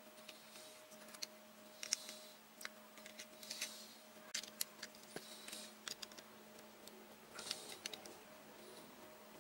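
Irregular small clicks and brief light scrapes of fingers handling metal clock hands and a thin wooden clock dial while pushing the hands onto the movement's spindle, over a faint steady hum.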